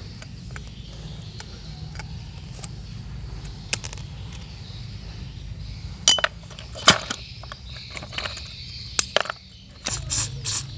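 A steady low hum with scattered sharp clicks and taps, which come more often in the second half, as of hard objects knocking together.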